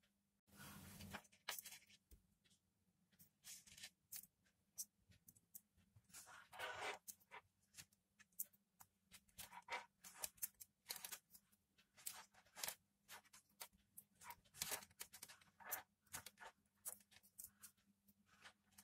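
Faint, irregular clicks and rustles of hands handling thin earphone wires and a cable on a tabletop, with a faint steady hum underneath.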